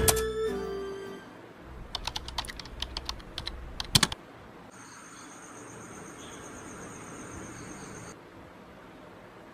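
Typing on a computer keyboard: a quick, irregular run of key clicks lasting about two seconds, as background music fades out. A faint, steady high tone follows for a few seconds.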